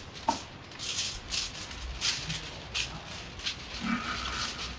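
Intermittent rustling in short, irregular bursts, like material being handled.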